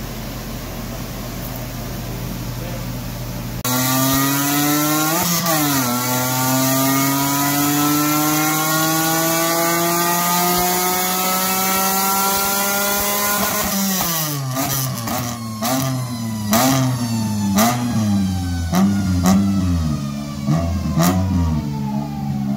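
BMW E36 rally car's engine on a chassis dyno: steady running for a few seconds, then a sudden full-throttle pull with the engine note climbing slowly and evenly for about ten seconds. After the throttle is lifted it is revved up and down several times, with sharp exhaust pops and cracks.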